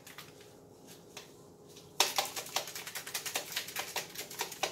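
Spice shaker of onion powder shaken in quick strokes: a fast run of rattling clicks that starts about halfway through, after a quiet first couple of seconds.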